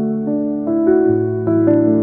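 Background music: soft piano with sustained notes changing every half second or so.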